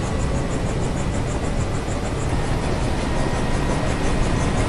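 Film sound effects of a giant flying aircraft carrier lifting out of the sea: a steady deep engine rumble mixed with water rushing off its hull.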